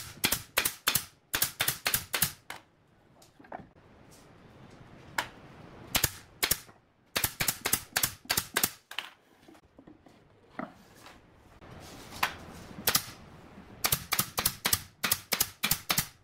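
Sharp clicks or taps in quick runs of about five or six a second, with single clicks and short pauses between the runs.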